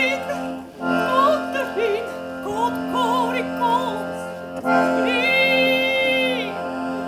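Live music: a voice sings a wavering melody over sustained accordion chords, ending on a long held note about five seconds in.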